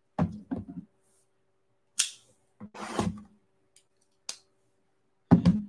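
A cardboard trading-card box set down on a wooden table with a few knocks, then short scraping and rustling sounds as it is handled, and two more knocks near the end.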